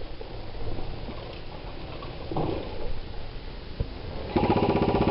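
A short burst of airsoft gun fire near the end: a rapid, even rattle of about fifteen to twenty shots a second lasting under a second, over a steady low rumble of wind and handling on the microphone.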